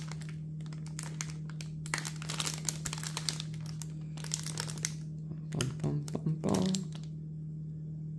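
A clear plastic bag crinkling as it is handled, in dense crackles over the first four seconds or so, over a steady low hum.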